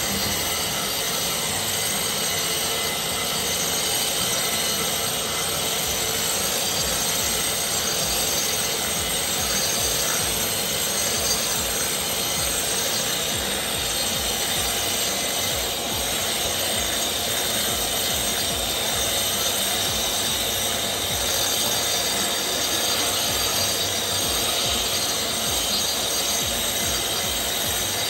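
Metabo HPT angle grinder with a segmented cup wheel under a dust shroud, running steadily as it grinds across a concrete patio, stripping off old, flaking sealer.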